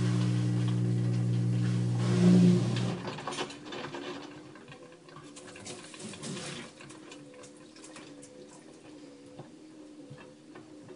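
LG WM3470HVA front-load washer in its wash cycle: a steady low motor hum as the drum turns slowly stops about three seconds in, followed by quieter water sloshing with scattered clicks and a faint wavering tone. This is the grinding or clicking heard only during slow wash rotations, not during fast spin, which the owner is unsure is normal.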